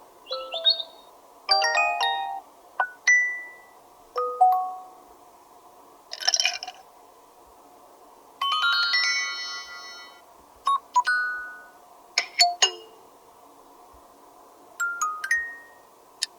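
A series of short smartphone notification tones from an LG K41s, played one after another with pauses between: brief chimes and plucked notes, a short shimmering burst about six seconds in, and a quick run of several notes a little after.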